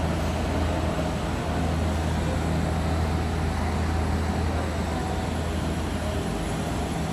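Jet airliner engines running steadily: a constant low rumbling hum with an even hiss above it.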